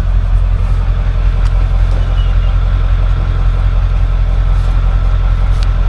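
A motor vehicle's engine running steadily, a constant low drone.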